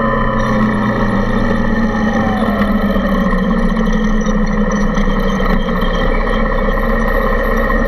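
Suzuki Intruder 125's single-cylinder engine running under a steady rush of noise. Its pitch falls over the first two or three seconds as the bike eases off, then holds steady.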